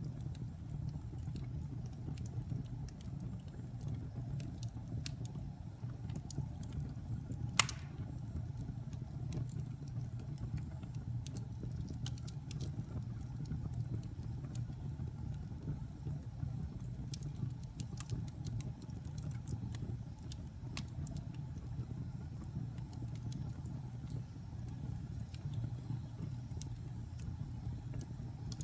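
Wood fire crackling: scattered sharp pops and ticks over a steady low rumble, with one louder crack about eight seconds in.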